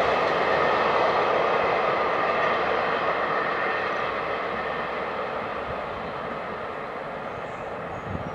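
Intermodal freight train of container wagons running away along the track: a steady wheel-on-rail rumble that fades steadily as the train recedes.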